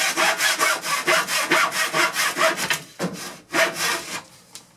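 Hand saw cutting through wooden trim in quick back-and-forth strokes, about four a second. Around three seconds in the strokes slow to a few last ones and stop.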